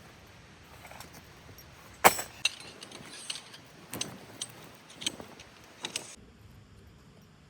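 Sharp clinks and knocks of hard objects being handled, about one a second, the first the loudest. They start about two seconds in and stop about six seconds in.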